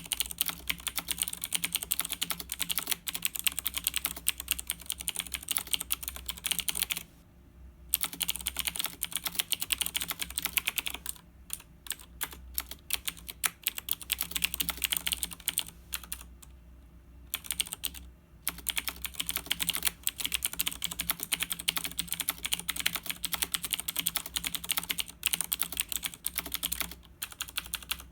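Fast, continuous typing on a Razer BlackWidow 2013 mechanical keyboard: a rapid run of key clicks, broken by brief pauses three times. A faint steady low hum lies underneath.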